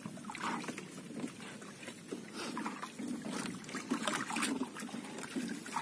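Seawater lapping and splashing against the hull and bamboo outrigger of a drifting outrigger boat, in irregular small splashes.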